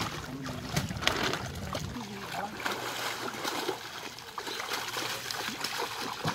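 Muddy water splashing and sloshing as a large fish is grabbed by hand in waist-deep water and thrashes at the surface, with scattered sharp splashes.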